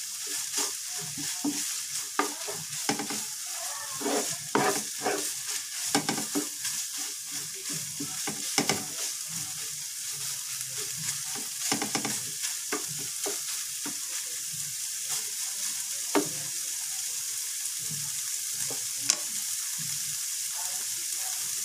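Meat and scrambled egg sizzling in a nonstick frying pan while a spatula scrapes and stirs it in quick, irregular strokes. The stirring stops near the end, leaving only the steady sizzle.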